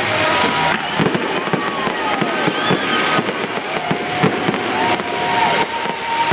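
Aerial fireworks display: shells bursting and crackling in a dense run of rapid pops and bangs, with several thin whistles gliding up and down in pitch.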